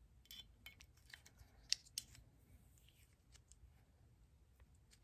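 Faint, scattered light metallic clicks and scrapes of small Glock slide parts being handled as the firing pin assembly is pressed into the slide, with two sharper clicks about a second and a half and two seconds in.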